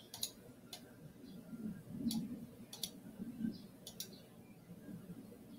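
Computer mouse clicking: about half a dozen sharp single clicks at irregular intervals.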